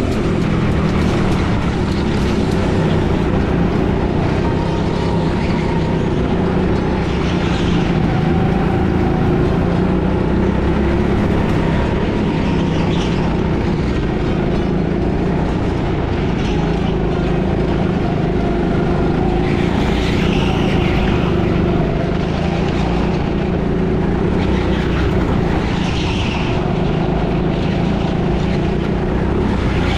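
Indoor go-kart engine running steadily under throttle, heard from the driver's seat, its pitch rising and falling a little through the corners. Several brief hisses come over it along the way.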